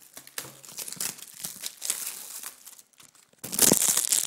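Packaging being handled and opened close to the microphone: irregular crinkling and rustling that gets much louder and denser about three and a half seconds in.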